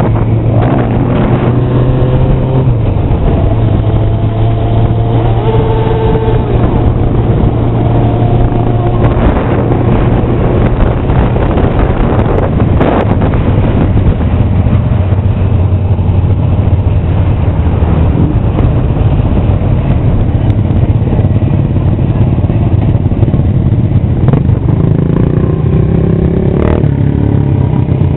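A group of motorcycles riding together. A steady engine drone runs underneath, and over the first several seconds other bikes rev up and down around it. A few short thumps break through.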